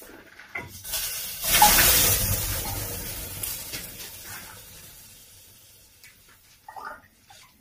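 Water thrown from a long-handled ladle onto the hot stones in the heater chamber of a brick bath stove, flashing into steam: a sudden loud hiss about a second and a half in that slowly fades away over the next few seconds.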